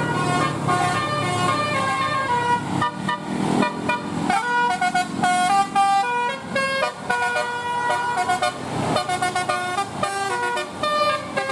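A bus's 'telolet basuri' multi-tone musical air horn plays a tune: a run of short held notes stepping up and down in pitch. A low engine rumble runs underneath.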